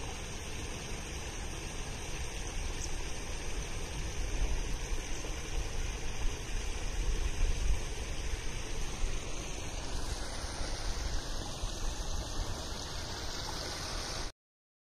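Steady rushing outdoor noise with gusty low rumbles, strongest in the middle; it cuts off suddenly near the end.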